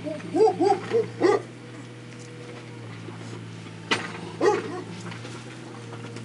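Litter of 24-day-old Šarplaninac puppies yipping and whimpering: a quick run of short rising-and-falling squeals in the first second or so, then a sharp yelp about four seconds in and one more squeal just after.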